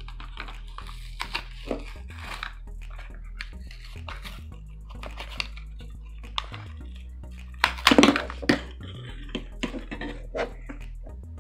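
Cardboard box of an LOL Surprise Finders Keepers toy handled and torn open, with scattered clicks and crinkles and a louder burst of tearing about eight seconds in, over background music.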